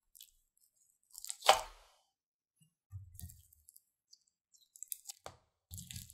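Thick, bubbly slime being stretched and squeezed by hand: wet squishes and pops, the loudest a long squelch about a second and a half in, followed by smaller squishes and crackles.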